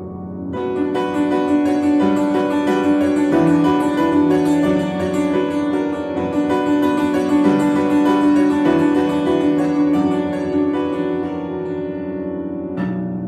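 Electronic keyboard played with both hands in a piano-like voice: flowing chords and held notes over a moving lower line, a new phrase coming in about half a second in and easing off near the end.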